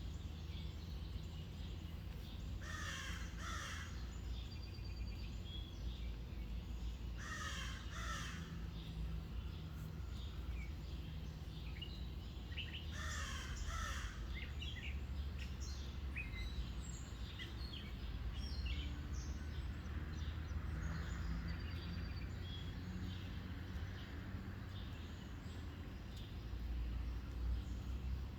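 A crow cawing in three short bouts a few seconds apart, each of about two harsh caws, over a steady low rumble, with faint small bird chirps later on.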